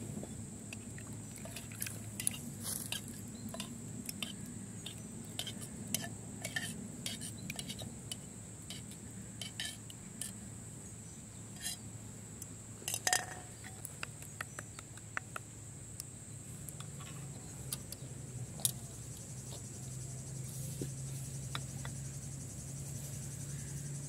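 Metal spoon clinking and scraping against clay bowls while ingredients are stirred and spooned: a run of small irregular clicks, thickest in the first half, with a louder clatter about 13 seconds in. A steady high-pitched insect drone continues behind.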